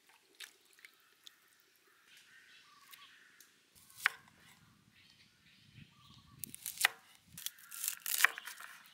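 Chef's knife cutting a red shallot and garlic cloves on a wooden cutting board: scattered sharp knocks of the blade on the board, one about four seconds in and a busier run of cuts near the end.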